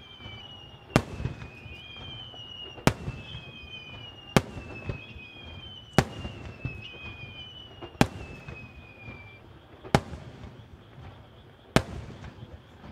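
Fireworks display: aerial shells bursting in seven sharp bangs, about one every two seconds, over a low rumble. High whistles glide down in pitch again and again until near the end.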